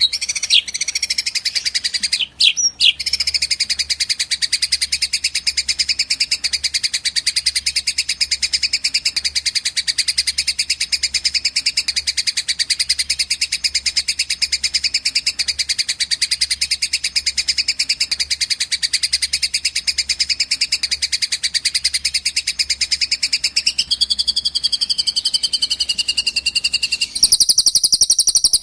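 Recorded songbird song for tutoring cage birds: a fast, unbroken high chattering trill, which switches abruptly to a different, higher and buzzier bird track near the end. A faint low electrical hum runs underneath.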